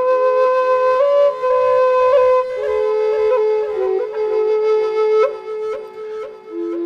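Shamanic flute playing a low melody, moving in steps between a few neighbouring notes with quick ornaments and small upward flicks into each note, the notes coming faster through the middle.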